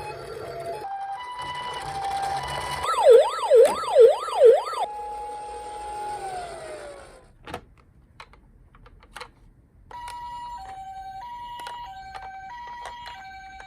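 Electronic sirens from toy ambulance and police minicars. First come steady tones stepping between pitches, then a fast wailing siren sweeping up and down four times, then a held tone that slides down and cuts out, followed by a few clicks. About ten seconds in, a two-tone hi-lo siren, the Japanese ambulance 'pee-poh', starts alternating evenly.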